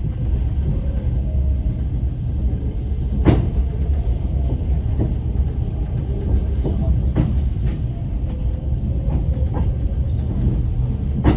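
Inside a moving passenger train's sleeper car: a steady low rumble of the running carriage, broken by several sharp, irregularly spaced knocks.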